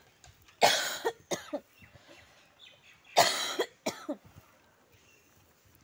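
A woman coughing in two bouts about two and a half seconds apart, each a strong cough followed by a smaller one. It is a bad cough she is suffering from.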